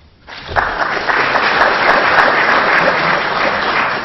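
Audience applauding in a lecture hall, starting about a quarter second in and building within a second to steady, loud clapping.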